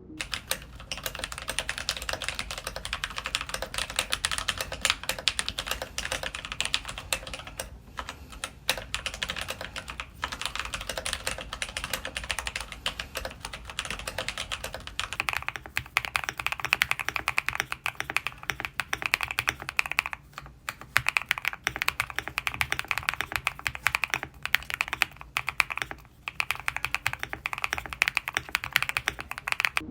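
Rapid, continuous typing on a mechanical keyboard, a dense clatter of keystrokes. About halfway through, the keystrokes turn brighter and ringier.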